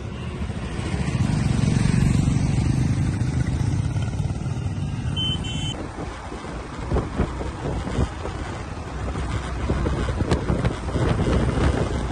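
Motorcycle engines on the road. One machine passes close by, its engine noise swelling to a peak about two seconds in and fading. Then comes the steady running noise of riding along with a group of motorcycles, rougher and broken by short irregular thumps.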